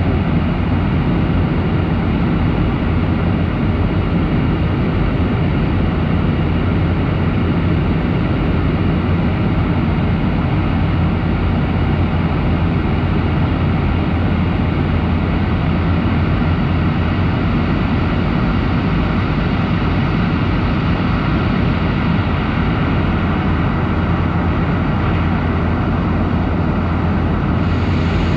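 Steady cabin drone of a Boeing 737-800 in flight, its CFM56-7B turbofan engines and the rushing airflow heard from a seat over the wing, with a constant low hum beneath an even roar.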